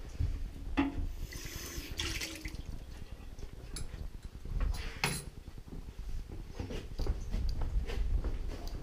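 Tap water splashing into a kitchen sink as something is rinsed, in short spurts over the first couple of seconds, followed by scattered light clicks and knocks.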